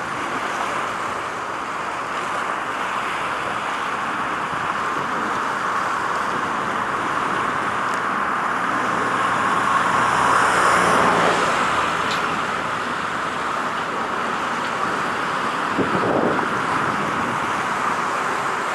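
Steady road traffic noise from passing vehicles, swelling louder about ten seconds in as a vehicle goes by.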